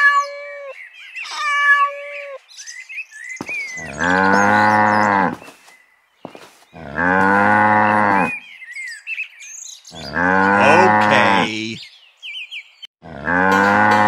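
Cattle mooing: four long moos about three seconds apart. A few short chirping calls come right at the start.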